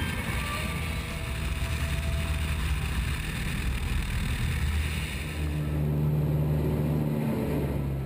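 CAP 10 aerobatic plane's piston engine and propeller running steadily, picked up by a camera on the airframe with heavy wind rush over the microphone. The engine note shifts about five and a half seconds in.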